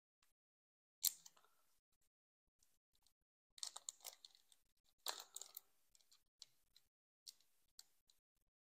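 Foil wrapper of a Pokémon booster pack crinkling faintly in a few short rustles as fingers pick at its sealed top edge, followed by a few light ticks.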